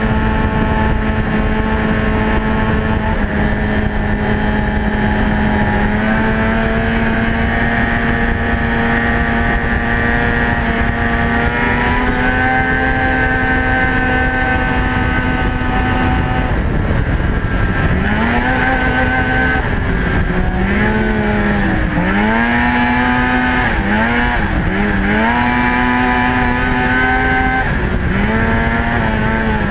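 Polaris snowmobile engine running at steady cruising speed, its pitch creeping slowly upward. In the second half the throttle is eased off and opened again several times, the engine note dipping and climbing back with each one.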